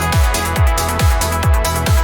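Electronic trance music: a four-on-the-floor kick drum at a little over two beats a second, with bass notes between the kicks, held synth chords and a steady hi-hat pattern.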